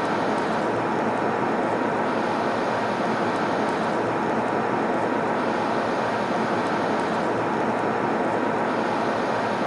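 Airplane cabin noise in flight: a steady, even rush of engine and airflow noise with a faint steady whine.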